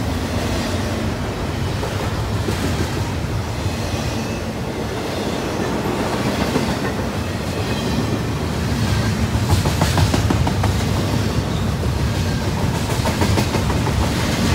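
Double-stack container well cars of a CSX intermodal freight train rolling past: a steady rumble of steel wheels on rail, with scattered wheel clicks that pick up a little partway through.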